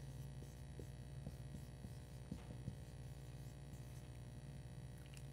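Low, steady electrical hum, with a few faint, short scratches of a marker on a whiteboard.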